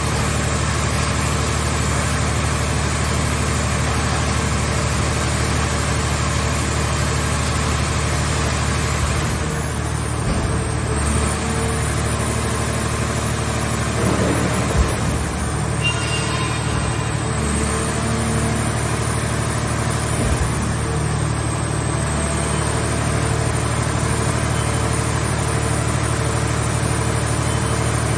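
Hydraulic car-body baler's power unit running steadily, its note shifting briefly about a third of the way through, with a few short knocks in the middle.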